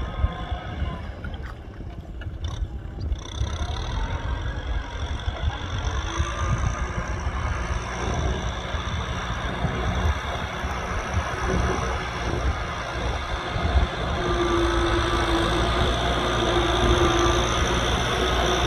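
Kubota M6040SU tractor's four-cylinder diesel engine running steadily while pulling a plough through mud, growing louder over the first few seconds. A steady higher-pitched note joins about three-quarters of the way through.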